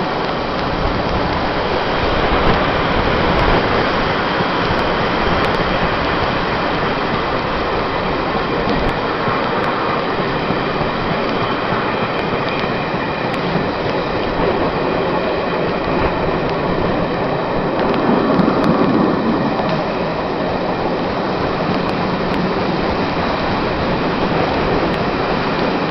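Class 47 diesel-hauled passenger train running along the line, heard on board as a steady rumble of wheels on rail. The rumble swells briefly about 18 seconds in.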